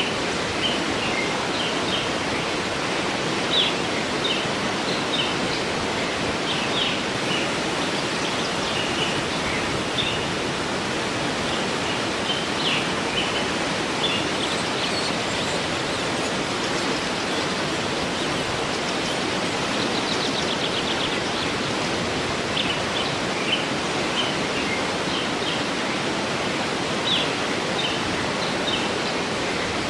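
Waterfall running steadily, with small birds chirping over it in short, scattered high calls and one brief fast trill about twenty seconds in.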